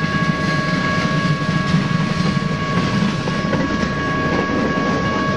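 Freight train of tank cars rolling past in a steady low rumble, with a steady high-pitched ring running through it.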